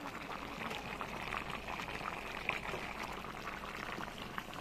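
Pork curry simmering in a pot: a steady bubbling with many small pops.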